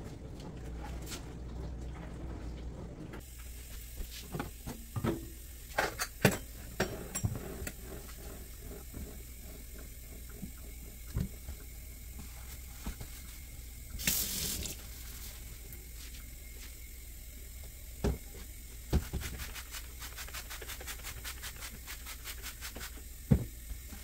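Sponge scrubbing and wiping a stainless steel sink, with scattered knocks and clunks on the steel. A short hiss comes a little past halfway, and a quick run of scrubbing strokes near the end.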